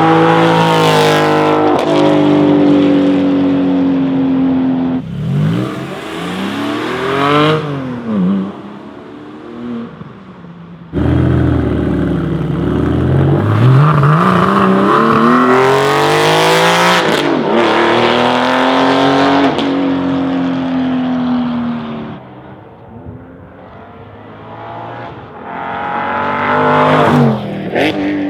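A Porsche 718 Cayman GT4's 4.0-litre flat-six driving past several times under hard acceleration. On each pass the engine climbs in pitch as it approaches, then drops sharply as it goes by, and the takes change abruptly between passes.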